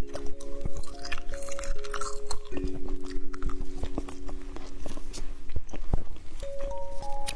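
Close-up chewing and crunching of candy, many sharp crisp bites and clicks, over soft background music of held notes.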